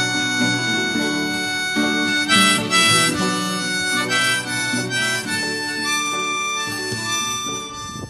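Background music: an instrumental break in a Korean song, a harmonica playing held melody notes over a chordal accompaniment, starting to fade out at the end.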